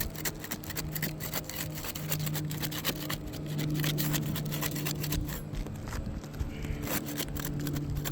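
Putty knife scraping and prying under an asphalt shingle to break its seal strip, a run of irregular scratches and small clicks, over a steady low hum.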